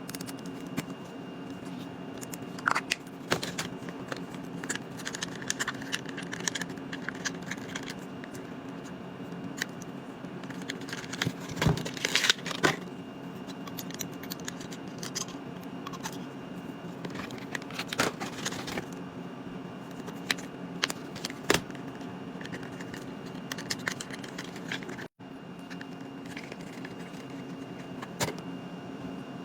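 Hands unpacking a subscription box of beauty products: scattered clicks, taps and short rustles of packaging and items being handled, over a steady low hum.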